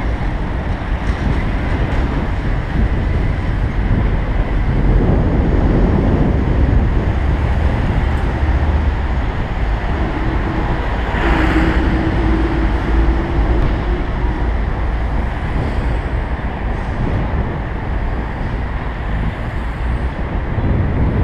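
Wind buffeting the microphone of a bike-mounted camera while riding in traffic, a steady rumbling roar of wind and road noise. About halfway through a truck passes alongside, adding a steady engine hum for a few seconds.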